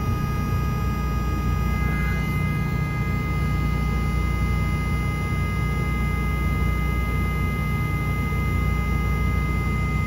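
Hitachi Zaxis 210-6 hydraulic track excavator running steadily: a deep, even diesel drone with a steady high whine over it as the hydraulics ease the quick coupler toward the bucket pin.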